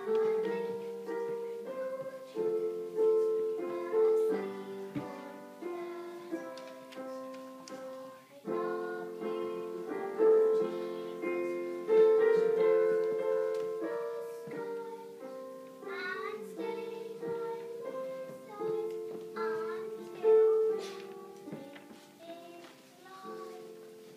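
A young girl singing a song solo, with a piano accompaniment playing held notes beneath her voice. The music grows quieter near the end as the song finishes.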